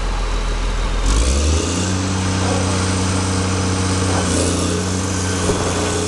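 Engine of a heavy demolition machine running. It revs up a little over a second in, then holds a steady higher speed under a constant noisy rush.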